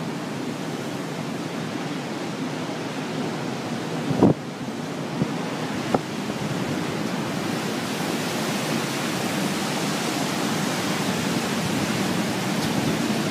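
Steady rushing noise of hurricane wind and water, with wind buffeting the microphone. Brief knocks come about four and six seconds in, the loudest about four seconds in.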